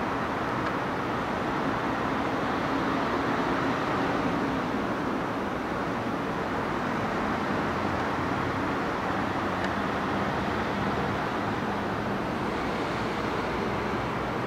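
Steady running noise of a commuter train in motion, heard from inside the car through the window glass, an even rumble and hiss with no horn or distinct clicks.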